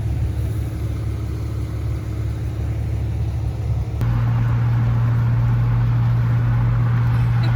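Steady low rumble, with an abrupt jump to a louder, steadier hum about halfway through.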